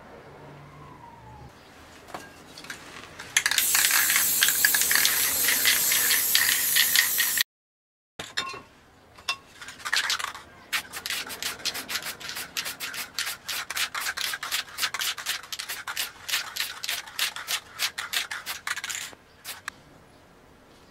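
A hand rubbing briskly over a sheet of paper pressed flat onto a spray-painted board: a dry, scratchy rubbing made of many quick strokes. It comes in two stretches with a sudden break between them, the first louder, and stops near the end.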